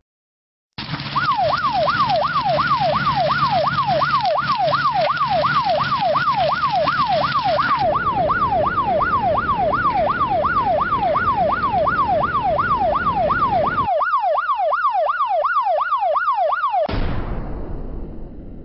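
Emergency-vehicle siren in a fast yelp, rising and falling a little over twice a second, over loud steady rushing noise. It starts suddenly about a second in and stops shortly before the end.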